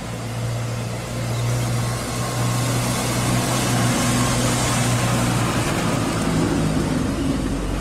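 A Blue Bird Vision school bus driving past, its engine giving a steady low hum over road and tyre noise, getting louder in the first second as it comes closer.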